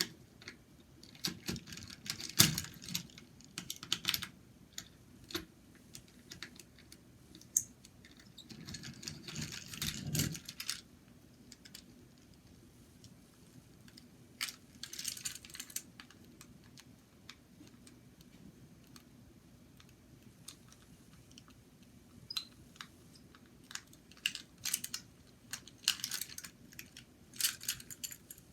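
Small plastic clicks and rattles of a toy train's tender being handled, in scattered bursts with quiet gaps between them.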